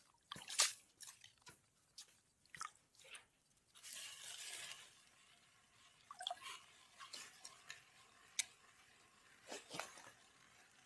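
Faint, irregular crunching and clicking of snow and ice, with a short hiss about four seconds in.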